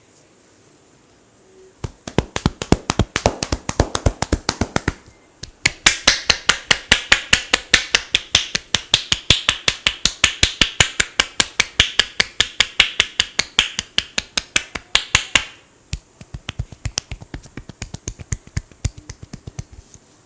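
Rapid rhythmic hand tapping and slapping on a person's head during an Indian head massage, about eight strikes a second. It comes in three runs, the middle one longest and loudest.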